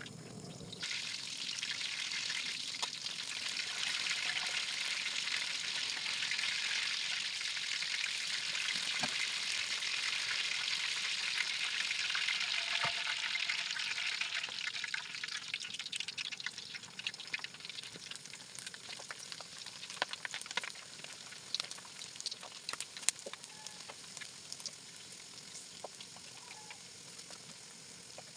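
Hot oil sizzling in an aluminium wok as food deep-fries. The sizzling rises about a second in, stays strong for about half the time, then dies down, with scattered clicks of tongs against the pan.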